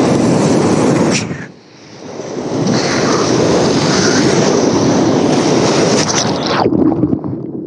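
Roar of a big whitewater rapid heard from a kayak running through it, with water rushing and splashing over the boat. The sound drops and goes dull for about a second, a second and a half in. It is cut off to a muffled rumble near the end as water washes over the microphone.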